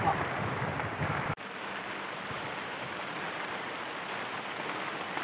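Heavy rain falling on open water: a steady, even hiss. A low rumble underneath cuts off abruptly about a second and a half in, leaving only the rain.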